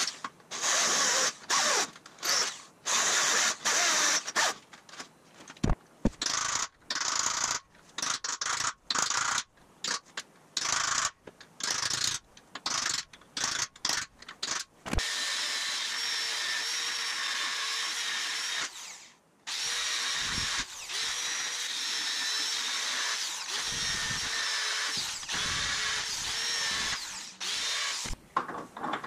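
Corded electric drill boring into a steel frame rail, triggered in short stop-start bursts for about the first half, then running steadily with a high whine, with one brief stop partway through.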